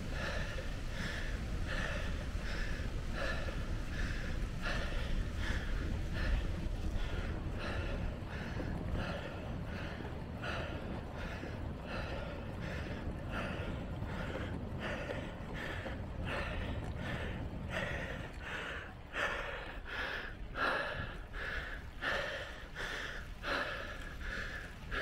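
A cyclist breathing hard and rhythmically while pedalling uphill, about one or two breaths a second, the breaths growing louder near the end, over a steady low rumble.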